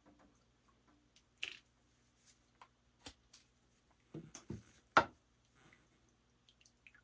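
Light clicks, taps and drips as a chainsaw crankcase part is lifted out of an ultrasonic parts cleaner's tank with tongs, with a sharper knock about five seconds in. A faint steady low hum runs underneath.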